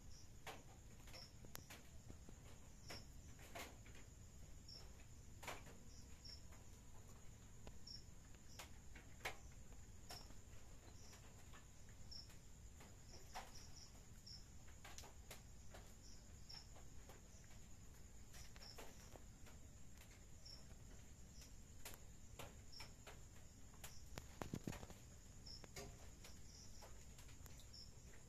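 Faint crickets: a steady high trill runs throughout, with short high chirps repeating every second or so. Scattered faint clicks come and go.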